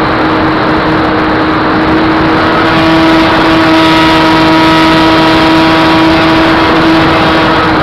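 Onboard sound of the Flyzone Calypso model sailplane's electric motor and propeller running at high power, a steady loud whine with a rushing noise under it. About two and a half seconds in, it rises a little in pitch and loudness as the model takes off.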